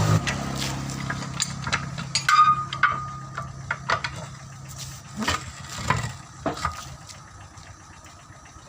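Scattered metal knocks and clinks of hand tools at tyre-repair work, one of them ringing briefly about two to three seconds in. A low hum drops off at the start and fades away over the next few seconds.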